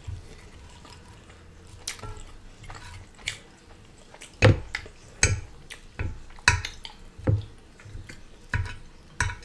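Close-miked eating: quiet chewing and wet mouth sounds, with a metal fork tapping and scraping on a ceramic serving dish as food is cut. The sharp clicks come about every second in the second half.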